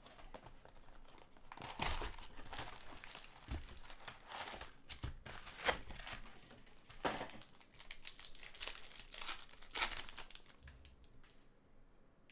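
Foil wrappers of Topps Chrome baseball card packs crinkling and tearing as the packs are handled and ripped open, in irregular rustling bursts.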